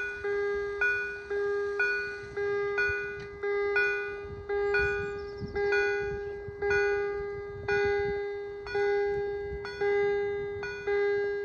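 Railway level-crossing warning bell ringing while the crossing is closed, about one stroke a second, each stroke ringing out and fading before the next.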